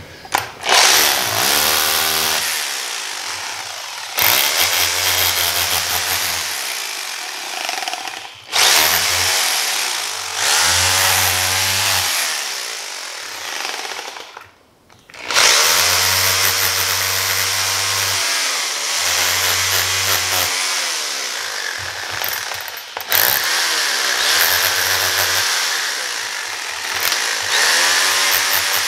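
Electric hand drill with a long bit boring into a bowling ball's shell and core around a thumb insert, running in long stretches with a few short stops, the longest about halfway through. The motor's pitch swings up and down as the bit bites into the ball.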